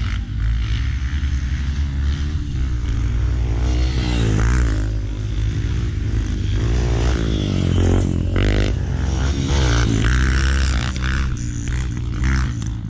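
Dirt bike engines revving, their pitch rising and falling several times in the middle of the stretch, over a steady low rumble.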